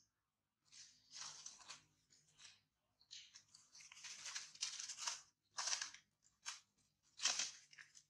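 Dry fallen leaves crunching and rustling in irregular bursts, the loudest a little past seven seconds in.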